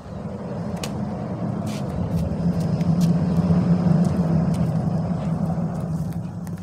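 A motor vehicle driving past, its engine hum swelling to a peak about halfway through and then fading away.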